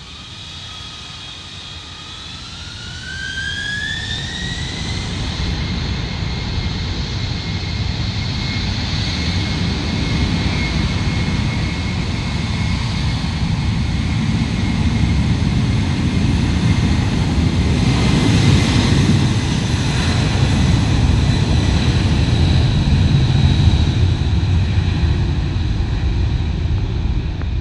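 C-5 Galaxy's four turbofan engines spooling up with a rising whine, then holding a steady high whine over a loud, low rumble as the huge transport speeds down the runway on its takeoff roll.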